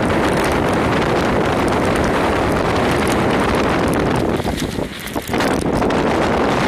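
Loud, steady rain, a dense hiss with many small hits through it, and wind buffeting the microphone. It eases briefly about four and a half seconds in, then comes back at full strength.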